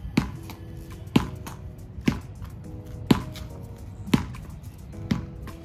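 Hammer blows at a steady pace of about one a second, six in all, during repair work on a gate, over quiet background music.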